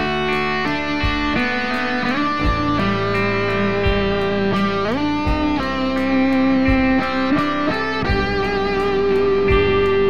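Background music: a guitar melody of held notes that slide up between pitches, over a steady drum beat.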